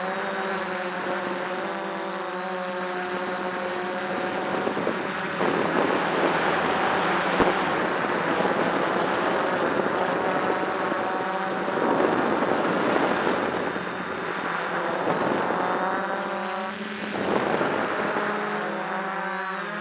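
DJI F550 hexacopter's six electric motors and propellers humming steadily in flight, heard from a camera mounted on the craft itself. A few seconds in, wind noise on the microphone swells and gusts over the hum, then eases near the end.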